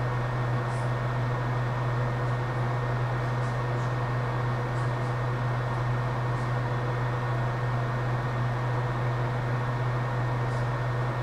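Steady machine hum with an even fan-like rushing noise, unchanging throughout, with a few faint light ticks.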